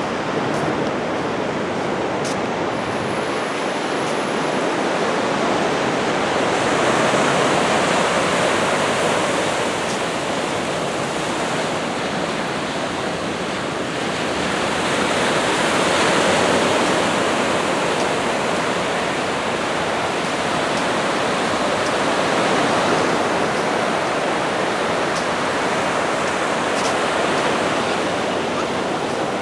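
Small waves breaking and washing up the sand: a steady rush of surf that swells and eases every several seconds.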